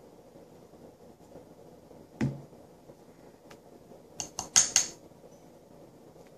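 A single knock about two seconds in, then a quick run of four or five sharp clinks from a metal spoon against a bowl a little after four seconds.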